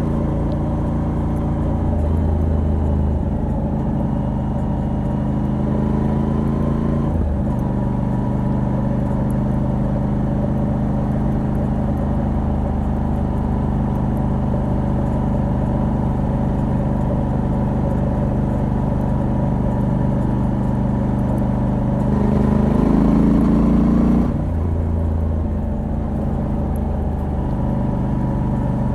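Moto Guzzi V85TT's air-cooled transverse V-twin running at a steady cruise through a stock exhaust with a Mistral decat pipe. About seven seconds in the note briefly breaks for a gear change. Near the end the engine pulls louder and rising for a couple of seconds, then cuts off abruptly.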